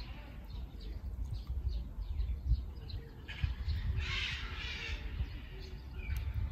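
Small birds chirping, with wind rumbling on the microphone. About three seconds in comes a breathy hiss lasting about a second and a half, and near the end a thin high steady tone begins.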